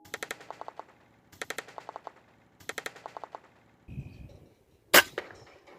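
A PCP air rifle fires once about five seconds in: a single sharp crack, followed at once by a smaller crack. Before the shot come three short bursts of rapid ticking and a low thud.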